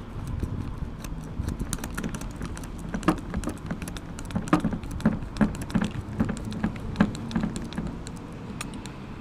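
Hand-lever grease gun being worked to grease U-joint needle bearings: a run of small, irregular metallic clicks with a handful of heavier clacks.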